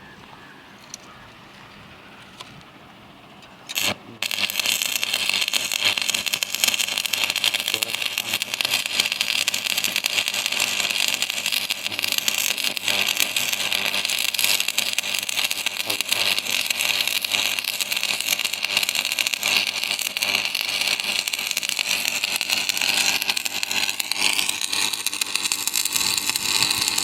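Stick (shielded metal arc) welding. The arc strikes about four seconds in with a sharp crack and then burns with a steady, loud crackling sizzle as the electrode lays down a bead.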